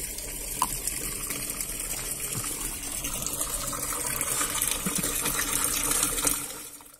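A stream of filtered rainwater pouring out of a filter outlet into an open plastic cistern, splashing steadily and growing louder, then fading out near the end.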